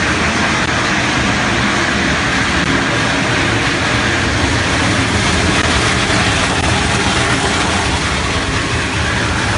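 GREENMAX A-C300 EPS foam densifier line running, its conveyor carrying loose styrofoam into the crusher: a loud, steady machine noise with a low hum beneath.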